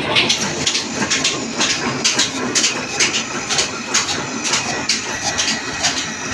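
Old black 'desi' slow-speed diesel engine running steadily, its exhaust beating about twice a second out of the silencer drum and vertical exhaust pipe.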